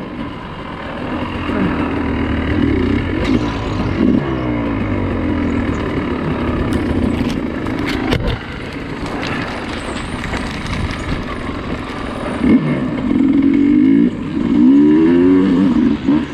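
Dirt bike engine revving up and down as it is ridden, with the revs rising and falling most clearly in the last few seconds. A few sharp clicks stand out in the middle.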